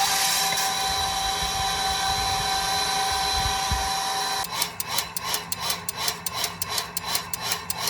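Well pump system starting up as its power is switched back on: a steady mechanical whine with several held tones, which gives way about four and a half seconds in to a fast, even rasping pulse of about four strokes a second.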